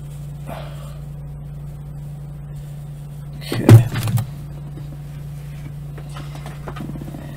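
Handling noise as an action figure is put away and a cardboard shipping box is rummaged: a loud thump with a few quick knocks about three and a half seconds in, and light rustling near the end, over a steady low hum.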